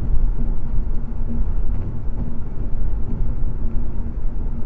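Steady low rumble of road and engine noise heard from inside a car cruising at highway speed, as picked up by a dashcam.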